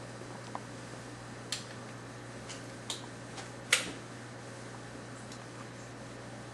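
Scattered light clicks and taps from small plastic fittings and tools being handled on a workbench, about six in all, the sharpest near the middle.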